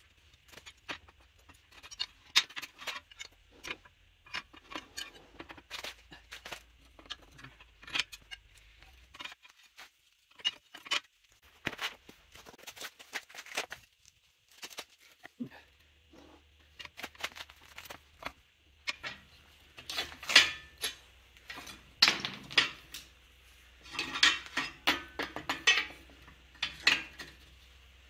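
Irregular metallic clinks and clanks from a hand-lever pipe bender being worked: steel locating pins lifted and dropped into the bender's holes and a stainless steel tube knocking against the frame. The knocks come thicker and louder in the last third.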